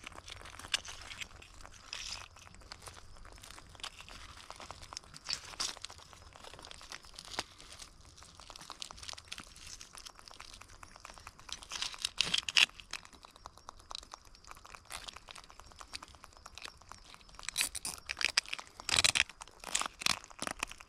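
Crunching, scraping clicks of hands and a live mud crab's shell and claws on gravelly mangrove mud as the claws are tied. The clicks come in scattered handfuls, louder about twelve seconds in and again near the end.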